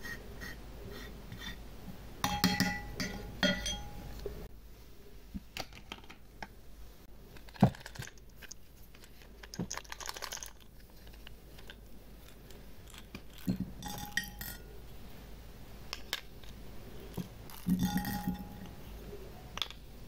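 Small plastic pieces clicking and clinking against a glass baking dish and plastic toy dishes, in scattered taps and knocks, some ringing briefly; clusters of clinks come a couple of seconds in, and again near the middle and near the end.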